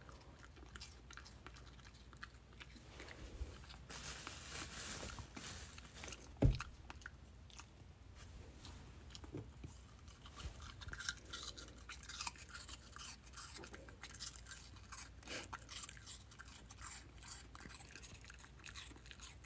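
A Jindo-mix puppy chewing and crunching pieces of raw apple, a run of small crisp crunches. A single thump about six and a half seconds in.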